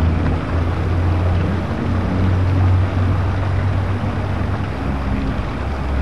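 Water falling and splashing down a small garden rock waterfall, over a steady low hum.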